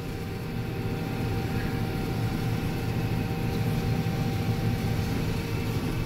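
Combine harvester running while cutting soybeans, heard inside the cab: a steady low drone of the engine and threshing machinery with a faint steady whine over it.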